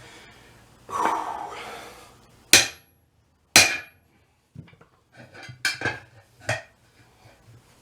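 Hand hammering on a tire bead as it is driven over the edge of a steel wheel rim: a brief scrape, then two loud sharp clanking strikes about a second apart, then a quicker run of lighter knocks.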